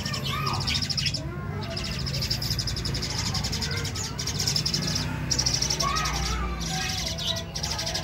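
Young pied starlings (jalak suren) begging while being hand-fed: high, fast rasping calls in runs broken by short pauses, with a few short chirps.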